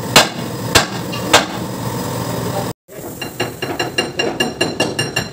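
A hand hammer striking steel on a dump truck's hoist arm linkage: three heavy blows, then, after a cut, a quick run of lighter metallic hits with a ringing tone, about four or five a second.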